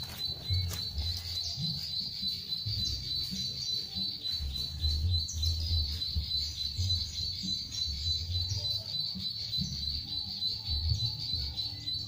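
Recorded song of the plain prinia (ciblek sawah) played from a small MP3 speaker as a lure: a fast, high, buzzy trill repeated without a break, with short higher chirps over it. A low uneven rumble runs underneath.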